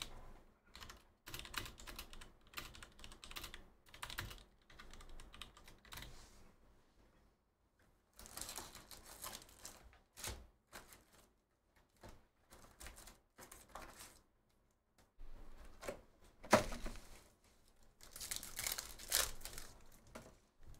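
Quiet scattered clicking and tapping, with a few stretches of rustling, as a cardboard hobby box of trading cards is opened and its foil card packs are handled.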